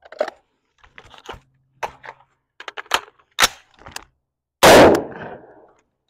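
A run of sharp clicks and clacks from gun and gear handling, then a single rifle shot from a Daniel Defense V7 AR-15 about four and a half seconds in, the loudest sound, with a short echo.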